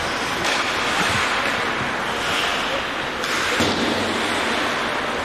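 Steady rushing noise of an ice hockey rink during play, as skates scrape and carve the ice. Two brief, sharper sounds come about half a second in and just after three seconds.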